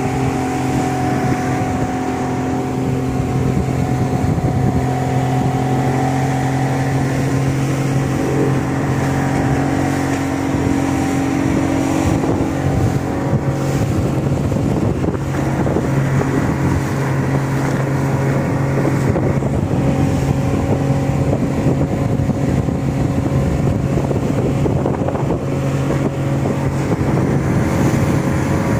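Small motorboat's engine running steadily at cruising speed, a constant low drone, with water rushing and splashing along the hull.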